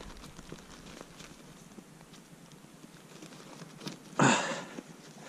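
Faint rustling and scattered small clicks of movement in deep snow, then one short, loud crunch about four seconds in.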